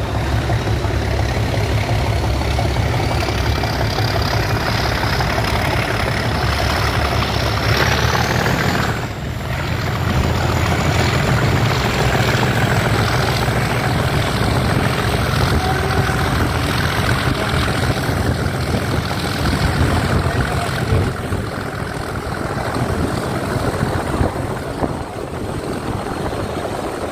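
British Rail Class 37 diesel locomotive under power, its English Electric V12 diesel engine giving a deep steady throb. A high turbocharger whistle rises slowly in pitch over the first eight or nine seconds and then holds steady, and the sound dips briefly about nine seconds in.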